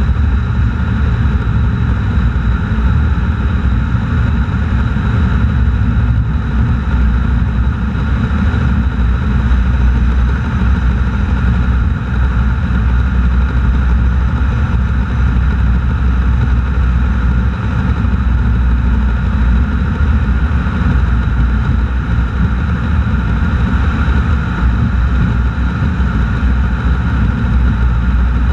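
Steady road and wind noise with an engine drone underneath, picked up by a camera mounted low on the outside of a car cruising at an even speed.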